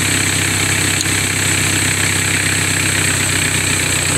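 Small diesel engine of a Cat 305 mini excavator running steadily while its hand fuel priming pump is worked. The engine sounds like it is sucking air into its fuel system, the suspected cause of its stumbling.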